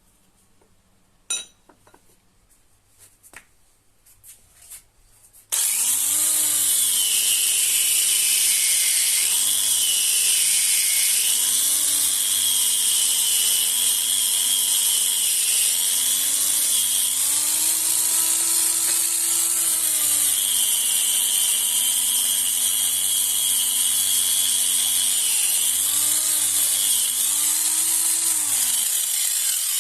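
Electric grinder grinding rusty metal. It starts suddenly about five seconds in, after a few light knocks, and runs as a steady high-pitched grinding hiss. The motor's pitch dips and recovers several times as the work is pressed against it, and it stops near the end.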